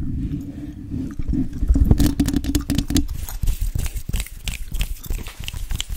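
Fingertips and long nails brushing and scratching directly on a USB microphone's body, heard very close with a dense low rumble. About three seconds in, this gives way to a run of sharp, wet crackles and clicks from gum chewing and mouth sounds close to the mic.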